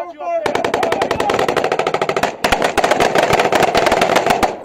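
Sustained automatic weapons fire: long strings of rapid shots starting about half a second in, with a short break about halfway through.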